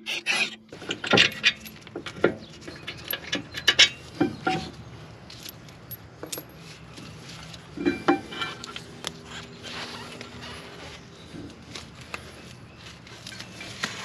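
Metal clinks, knocks and rattles as a large Brembo brake caliper is worked free and lifted off the brake rotor. The sharpest knocks come in the first few seconds, with a further cluster about eight seconds in.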